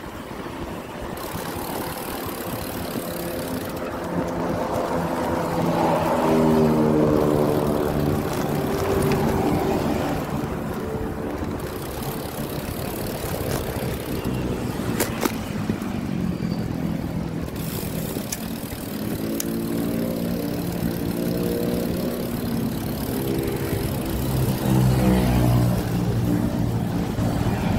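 Motor vehicles passing on the adjacent road, their engines swelling and fading: once about six seconds in and again near the end.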